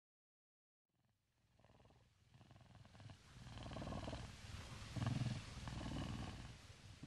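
Low, rough animal growl or roar that swells in after about a second of silence, is loudest around five seconds in and eases off near the end.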